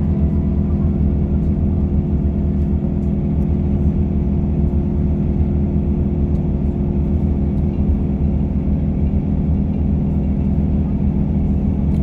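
Tour coach cruising at motorway speed, heard from inside the cabin: a steady low drone of engine hum and road rumble.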